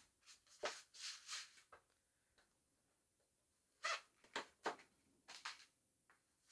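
Glossy printed card and cardboard packaging being handled: a few short rustles and scrapes, one cluster about a second in and another from about four to five and a half seconds in, with quiet between.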